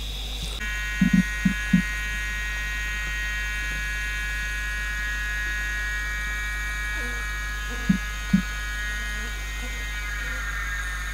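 A few dull thuds of hands patting and pressing wet clay on a kiln wall: three close together about a second in and two more near eight seconds. A steady high-pitched insect buzz runs behind them.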